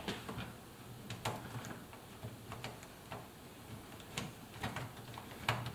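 Scattered light clicks and taps, about one or two a second and uneven, from hands working a washing machine's rubber door seal onto the drum opening.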